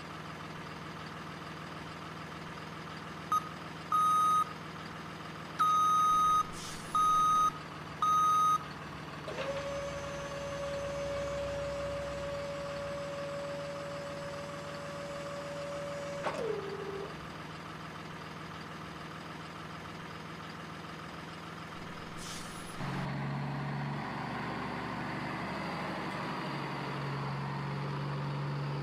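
Toy remote-control dump truck's electronic sound effects: about five reversing-style beeps, then one steady tone held for about seven seconds that dips in pitch as it stops, while the tipper bed dumps its load of soil. Later a lower, engine-like hum starts.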